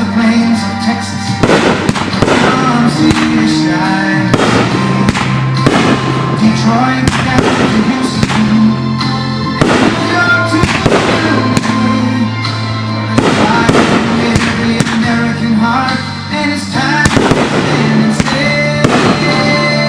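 Fireworks bursting in rapid, irregular bangs, sometimes several a second, over loud music played throughout.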